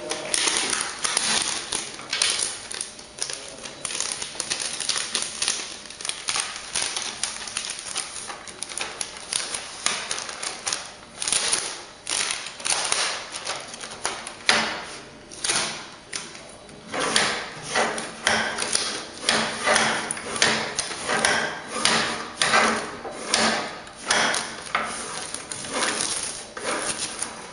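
Hands-on handling noise while a thermal-transfer ribbon is loaded into a TSC industrial label printer: irregular clicks and knocks of the cardboard cores going onto the plastic and metal spindles, with rustling of wrapping and the ribbon film. The clatter grows denser over the second half.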